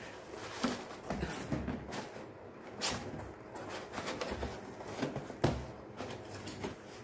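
Cardboard box being handled on a table: flaps opened and the box turned over and shifted. It gives a few scattered soft knocks and scrapes.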